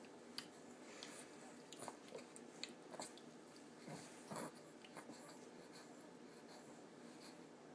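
Faint, scattered small wet clicks and smacks of a baby mouthing pear purée, with one slightly longer smack about four seconds in, over quiet room tone.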